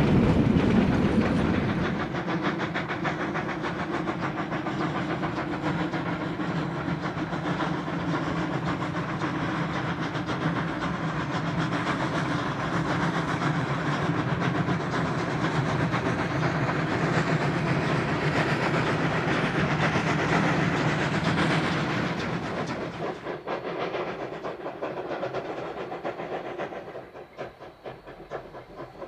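A freight train's cars rolling past, the wheels clicking steadily over the rail joints. The sound fades away about three-quarters of the way through.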